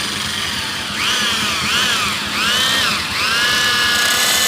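Electric drill motor whining, its speed rising and falling several times as the trigger is eased, then running steadily at speed from about three seconds in. It is spinning a square wooden stick through a bladed jig to turn it round.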